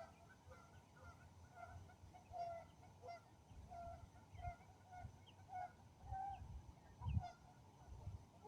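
Geese honking in a string of short calls, about two a second, with gusts of wind thumping on the microphone.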